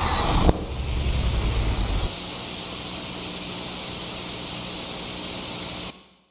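Steady rushing hiss of noise, with a low rumble under it for about the first two seconds; it fades out to silence near the end.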